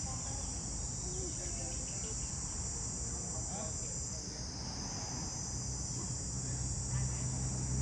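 A steady, high-pitched insect chorus that eases slightly about halfway through, over a low background rumble.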